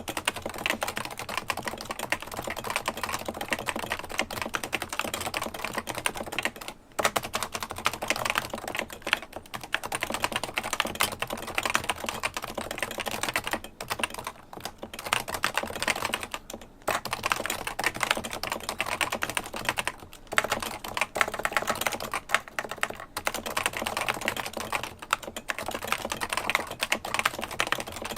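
Continuous fast typing on a Realforce 108UG HiPro keyboard with 45 g Topre electro-capacitive switches: a dense, even stream of key strokes, broken by a few short pauses.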